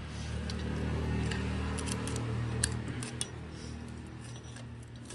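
Light metallic clicks and clinks of a motorcycle cam chain's steel roller links as the chain is worked by hand into the engine block, irregular and scattered, over a steady low hum.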